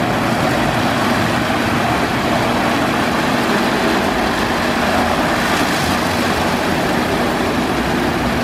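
Istobal M1 rollover car wash at work: its big horizontal brush spinning and scrubbing over a car amid water spray, over a steady motor hum. The noise is steady throughout, with a brief rise in hiss a little past the middle.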